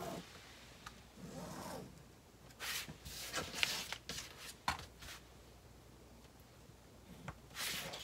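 A pen scratching a line along a clear acrylic ruler on a strap strip, then the ruler and strip being slid and handled on a cutting mat: rubbing noises with a few sharp clicks, loudest in the middle.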